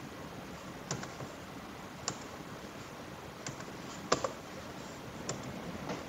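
About five sharp, irregularly spaced clicks of computer input, keyboard keys and mouse buttons, over a steady faint hiss; the loudest comes about two-thirds of the way in.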